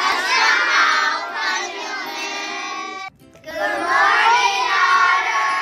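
A class of young children singing together in unison, cut short about three seconds in and followed after a brief gap by another group of children singing.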